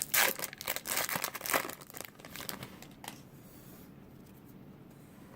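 Baseball card pack wrapper being torn open and crinkled, crackling in quick bursts for the first two seconds or so, then dying away.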